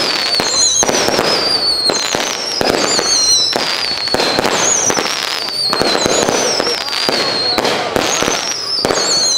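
Consumer aerial firework cake firing shot after shot, each launch a whistle falling in pitch, about seven in a row spaced just over a second apart, over continuous crackling.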